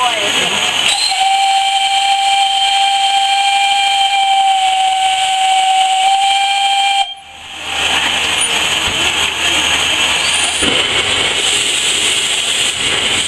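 Steam locomotive whistle blown from the footplate, held on one steady note for about six seconds and then cut off suddenly. Loud steam hiss fills the cab before and after it.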